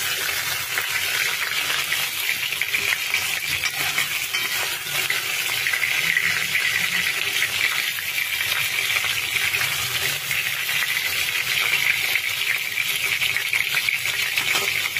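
Prawns shallow-frying in hot oil in a kadai: a steady crackling sizzle with many fine pops.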